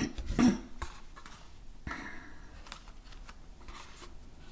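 Light clicks and rustles of a deck of tarot and Lenormand cards being handled, with one louder brief handling sound about half a second in.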